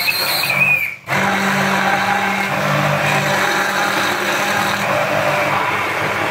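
Hand-held immersion blender running in a plastic tub, whipping egg, garlic, salt and lemon into garlic mayonnaise. There is a brief gap about a second in, then the motor runs steadily.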